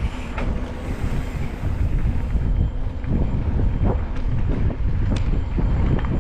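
Wind buffeting the action camera's microphone over the rumble of an electric mountain bike's tyres rolling on a gravel dirt trail, with a few sharp rattles from the bike over bumps in the second half.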